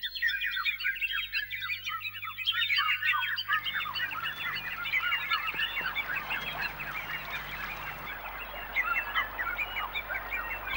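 Many birds chirping and calling in a dense chorus of short, quick calls, over a faint steady low hum; a soft hiss joins about three and a half seconds in.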